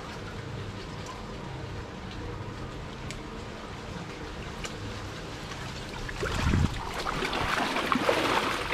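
A steady low motor-like drone under a hiss, joined about six seconds in by louder splashing and sloshing of water.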